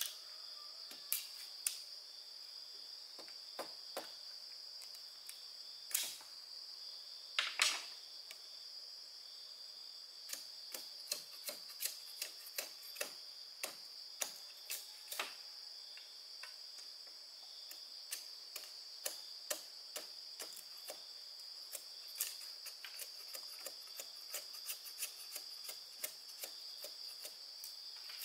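Crickets chirring steadily, with irregular sharp clicks and snaps over them that come in quicker runs, about one or two a second, in the second half.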